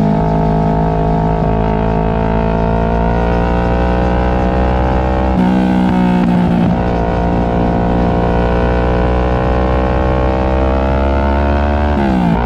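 Kawasaki Ninja 650's parallel-twin engine through a Two Brothers aftermarket exhaust, running under way with its note climbing slowly. The note breaks sharply about five seconds in and dips quickly near the end, like gear changes.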